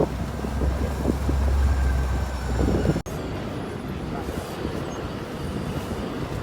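Low steady rumble of vehicle traffic, heaviest at first, with a sudden dropout about three seconds in where the recording cuts, then a quieter steady hum.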